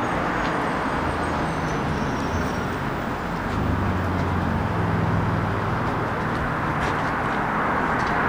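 City street traffic: vehicle engines running with a steady hum of road noise.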